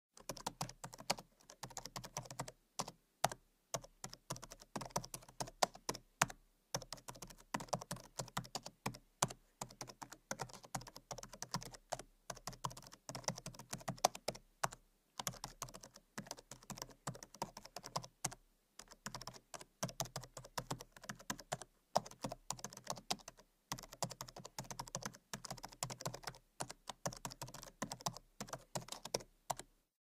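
Typing on a laptop keyboard: rapid, uneven key clicks in steady runs, broken now and then by short pauses.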